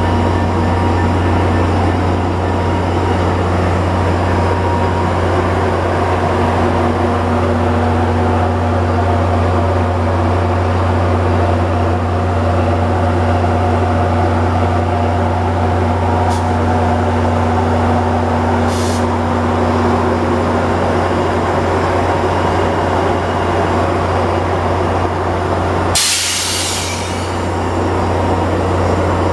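Metra diesel passenger locomotive running with a steady low engine drone as it pulls slowly out past the platform. A short, sharp hiss cuts in near the end.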